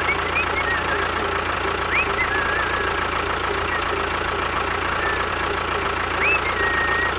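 A small engine running steadily at idle with an even knock, with a few short high chirps over it.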